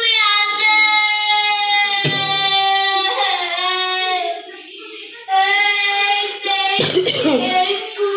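A child singing in a high voice, holding long notes with slight pitch wobbles. A sharp knock comes about two seconds in, and a short rough noise near the end.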